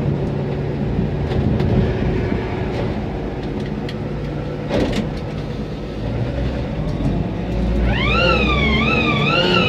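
1947 Chevrolet pickup driving, heard inside the cab: a steady engine drone with road noise and one knock about five seconds in. About eight seconds in, a loud siren-like wailing tone rises and wavers up and down, sounded to announce the truck's arrival.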